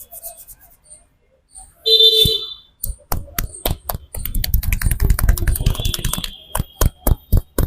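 Hands striking a head in a percussive head massage: rapid tapping and chopping blows on the scalp, a dense fast run in the middle, then single sharp slaps about four a second near the end. A short loud tone sounds about two seconds in.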